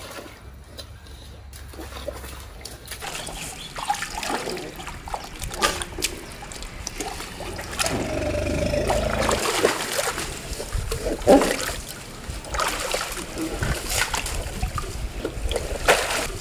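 A baby Asian elephant splashing and sloshing water in a plastic tub with its trunk and feet: irregular splashes, sparse for the first few seconds and busier from then on.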